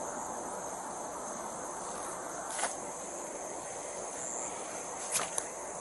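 Steady high-pitched chorus of insects chirping in grass at night, with a short sharp click about two and a half seconds in and a couple more near the end.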